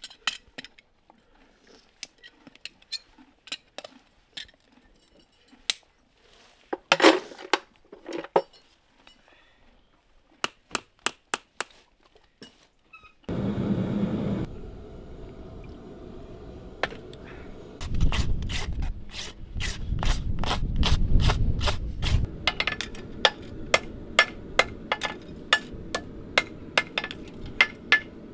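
Light, scattered metal taps and clinks of farrier's tools. About halfway a steady rushing noise sets in, with a deeper rumble for a few seconds, and over it comes a fast, even run of hammer blows on metal, about three a second, typical of shaping a horseshoe on an anvil.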